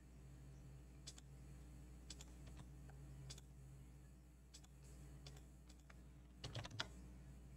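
Faint computer mouse clicks and keystrokes, spaced about a second apart, then a quick run of several louder keystrokes about six and a half seconds in, over a low steady electrical hum.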